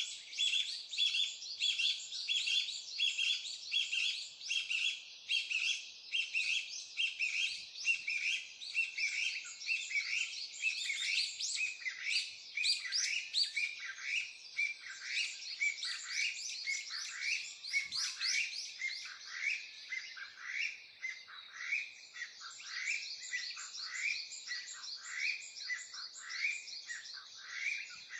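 Birds chirping and twittering continuously, many short rapid notes overlapping, some sweeping downward.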